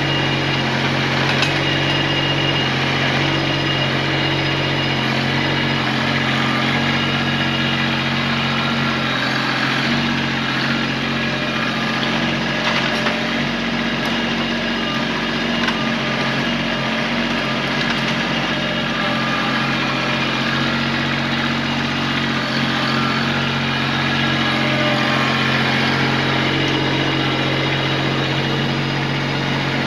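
Kubota tractor's diesel engine running steadily at a constant speed, with a few faint knocks.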